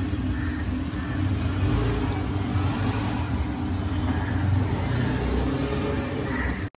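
Steady low rumbling background noise, like a motor or traffic, that cuts off abruptly near the end.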